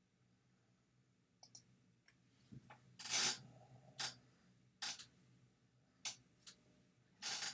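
Computer mouse clicking: a string of separate, irregular clicks, the loudest about three seconds in and again near the end.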